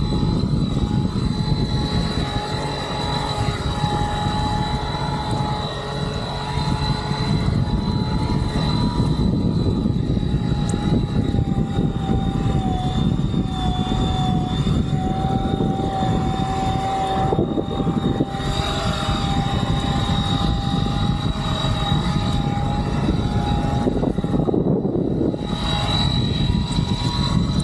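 Fliteboard Ultra eFoil's electric motor and propeller running at speed, a steady whine that wavers slightly in pitch, over a constant rushing noise of wind and water.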